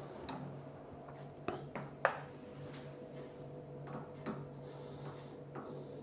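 A few scattered light clicks and taps from handling the thermoelectric cooler's power connector and wiring as the power is cut, over a faint steady hum.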